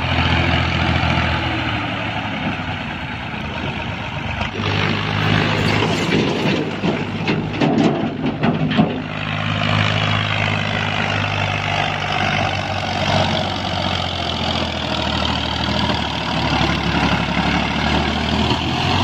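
Massey Ferguson tractor's diesel engine working hard as it pulls a loaded earth trailer. It runs loudest and roughest, with clattering, from about five to nine seconds in, then settles to a steady run as the tractor passes close by.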